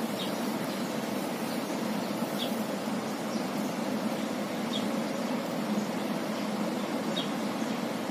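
Stationary coach's diesel engine idling with a steady hum. A short high chirp repeats about every two and a half seconds over it.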